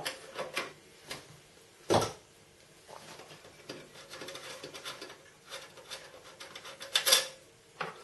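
Thumb screws being loosened and taken out of a PC case's metal expansion-slot covers: scattered metallic clicks and light scraping, with a sharp click about two seconds in and a cluster of louder clicks near the end.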